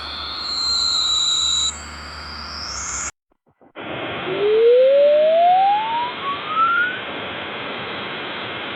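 Synthesized alert tones, several high electronic notes gliding upward together, cut off about three seconds in. After a brief silence a hiss starts, with one whistling tone rising steadily in pitch for about three seconds, then the hiss carries on steady.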